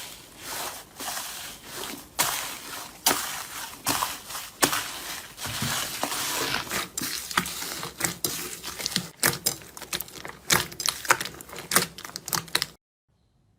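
Slime being squeezed and worked by hand, giving a dense run of irregular wet clicks and crackling pops that stops abruptly near the end.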